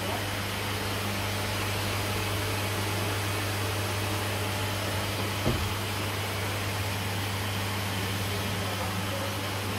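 Steady hum of production-floor machinery and ventilation: a constant low drone under an even rushing noise, with a single knock about five and a half seconds in.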